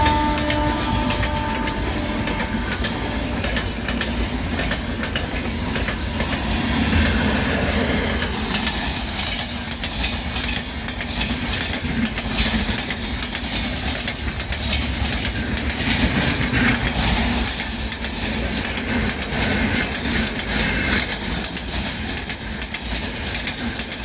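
Indian Railways LHB passenger coaches rolling past, their wheels clattering over the rail joints in a steady, rapid clickety-clack. A train horn note dies away in the first couple of seconds.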